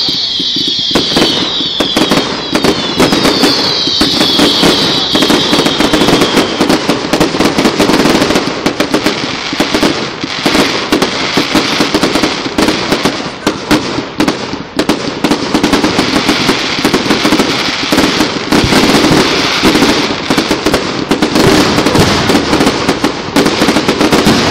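Fireworks display: a dense, continuous barrage of bangs and crackling. In the first few seconds several whistling fireworks give falling whistles over the bangs.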